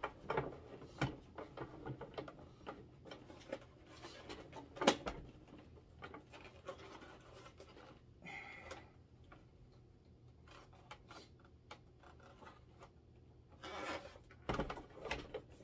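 Hard plastic knocks, taps and rubbing as a large toy spaceship model is handled and lined up on its plastic display stand, with one sharper knock about five seconds in and a cluster of knocks near the end.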